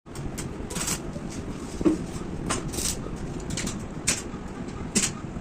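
A handful of short, sharp knocks and clicks, about five spread unevenly, over a steady low background rumble.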